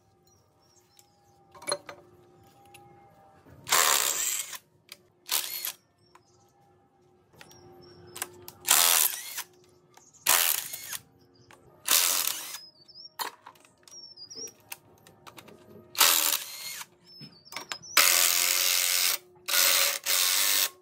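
Cordless impact wrench running in about eight short bursts, half a second to a second each, undoing bolts on a burnt, rusted engine.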